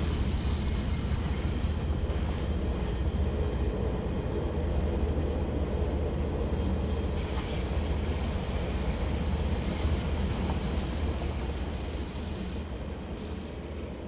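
Freight train's container wagons rolling along the track with a steady low rumble and thin high-pitched wheel squeal, fading near the end.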